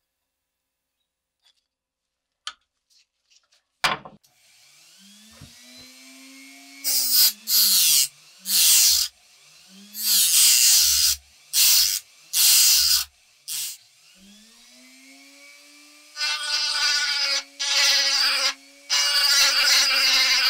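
Near silence for about four seconds, then a click and a handheld rotary tool starts, running with a steady whine whose pitch sags and recovers. Its sanding bit grinds against the wooden handle in short repeated bursts, then in longer passes near the end.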